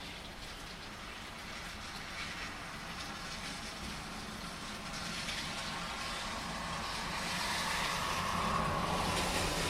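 A car passing on a wet road in steady rain: the hiss of its tyres on the wet surface builds up over several seconds, loudest near the end, over the constant patter of rain.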